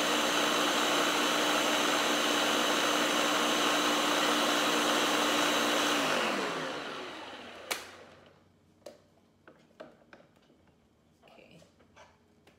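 Countertop blender running steadily as it blends a potato punch mixture of mashed Irish potato, milk and eggs, then switched off about six seconds in, its motor winding down and falling in pitch. A sharp click follows, then a few light clicks and knocks.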